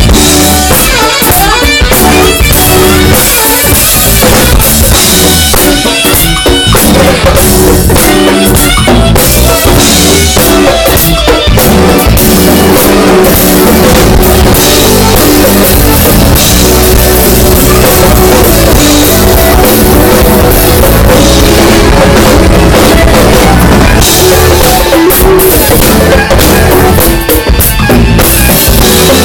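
Live band playing loudly, with the drum kit prominent.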